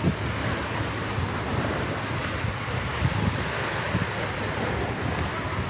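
Sea surf washing against a rocky shore, under wind buffeting the microphone in a steady, gusty rumble.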